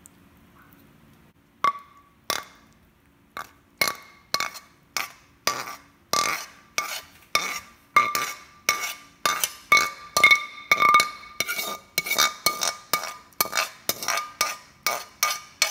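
A metal fork clinking repeatedly against a plate, about two to three strikes a second, each with a brief ring. The clinks start about a second and a half in.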